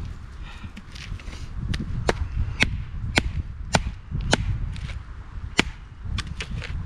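Firewood being split by hand: a run of about six sharp, cracking strikes roughly half a second apart, then a few lighter taps near the end. Some of the wood is soft and punky.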